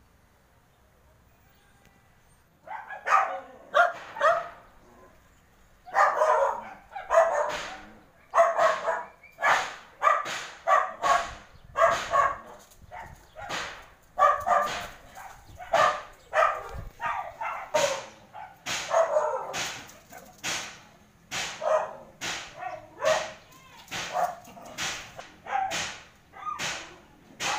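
A dog barking repeatedly. The barks start about three seconds in and keep up a steady run of one or two a second.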